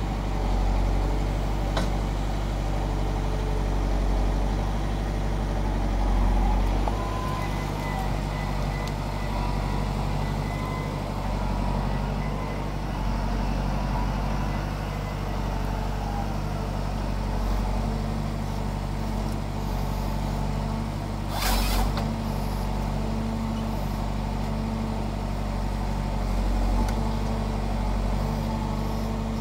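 The diesel engine of a Valtra N101h forestry tractor runs steadily while it drives the crane and the Nisula 325H harvester head. A thin hydraulic whine comes and goes, and one short, harsh burst of noise sounds about three-quarters of the way through.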